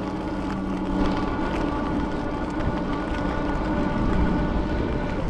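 Steady rushing noise of an electric bike being ridden along a street, with a faint steady hum running through it.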